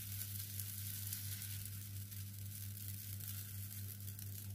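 Rava (semolina) batter sizzling gently on a hot oiled nonstick tawa: a steady fine hiss with faint crackles. A steady low hum runs underneath.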